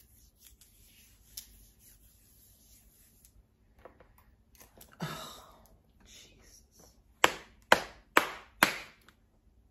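Quiet handling with faint clicks, a sniff about five seconds in, then four sharp smacks about half a second apart near the end.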